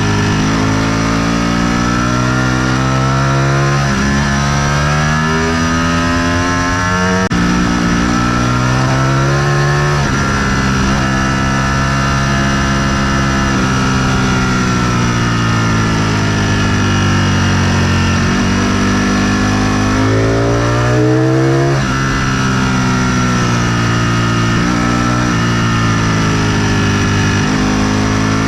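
Sport motorcycle engine under hard riding, its pitch climbing through the gears again and again, dropping sharply at each upshift, with a long easing off and pull-up in the middle.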